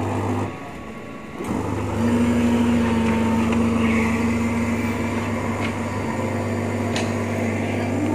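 An electric machine humming steadily with a low buzz. It drops away briefly about half a second in, comes back about a second later and runs on, with a steady higher tone held over it for several seconds in the middle.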